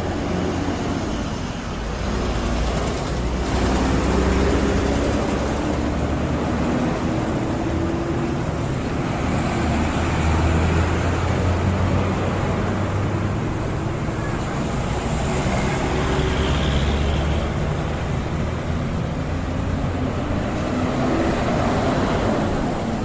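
Bus engine and road traffic running with a low, steady rumble, without a horn melody.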